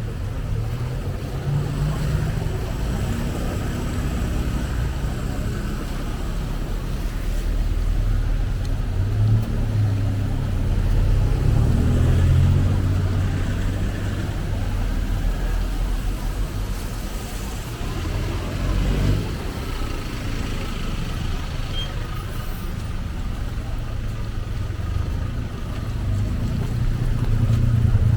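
Street traffic: motor vehicles running and passing close by, a steady low rumble that swells about midway and again near the end.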